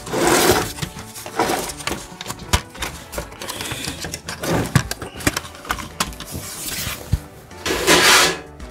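Plastic clicks, knocks and scraping as the front panel of a top-loading VCR's casing is unclipped and pulled off, with a louder scrape right at the start and another near the end.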